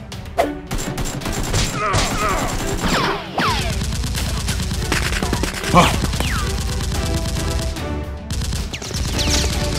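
Rapid bursts of automatic gunfire sound effects with a few falling whines, over background music.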